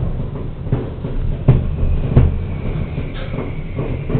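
Distant fireworks going off: a series of dull booms, some louder and some fainter, coming roughly every half second to a second over a low rumble.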